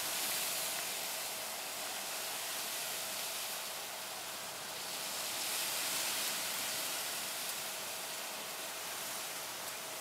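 Steady outdoor background hiss that swells gently twice, with a faint steady tone underneath; no sound comes from the cat or the bird.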